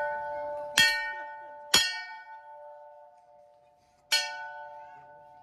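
Large hanging brass temple bell rung by hand, struck three times: just before one second, just before two seconds and about four seconds in. Each strike rings on in a long, slowly fading tone. The ring of an earlier strike is still sounding at the start.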